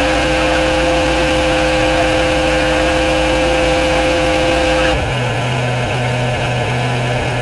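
Pressure washer running and spraying with a steady whine and hiss; about five seconds in the spray stops, the pitch drops to a lower hum, and it stays that way to the end.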